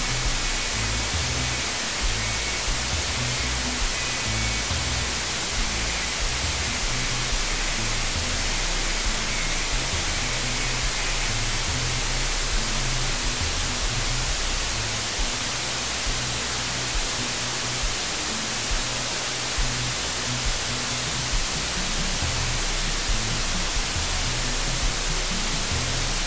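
Background music, low bass notes shifting under a steady hiss.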